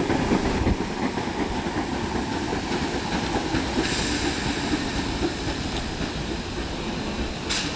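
A Class 313 electric multiple unit moving through the station, its wheels rumbling and clicking steadily over the rails. There is a brief hiss about four seconds in and a sharp crack near the end.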